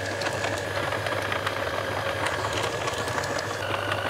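Electric stand mixer running steadily with its dough hooks kneading a potato bread dough as butter is worked in: a constant motor hum and whine with a light rattle. The whine drops a little in pitch about three and a half seconds in.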